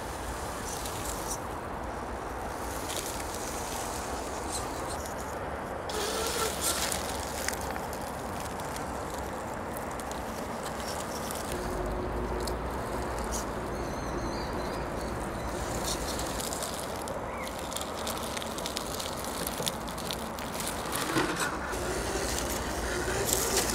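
RC rock crawler with a 35T brushed motor whirring as it crawls, its gears and tyres scrabbling over rocks and roots with scattered clicks and scrapes.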